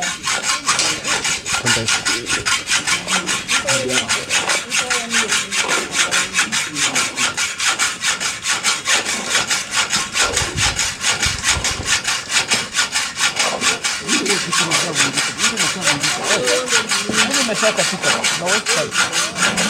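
Hacksaw cutting a steel bar by hand, in rapid, even back-and-forth strokes of about four a second.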